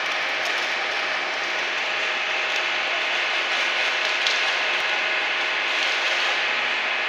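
Steady industrial machinery noise from a wheel-rim production line, a dense even hiss with a few faint clicks.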